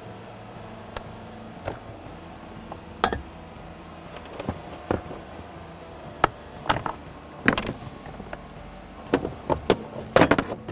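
Plastic wiring-harness connectors being unclipped and handled under a car's dashboard: a series of short, irregular clicks and light plastic rattles over a low steady hum.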